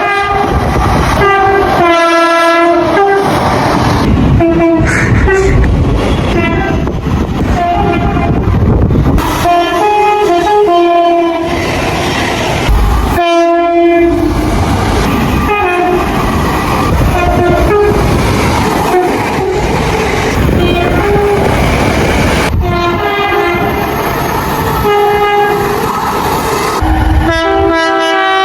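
A series of train horns sounding in turn: short and longer blasts, some two-tone calls switching between a higher and a lower note. Under them runs the rumble of trains passing over the rails, with wheels clicking over rail joints.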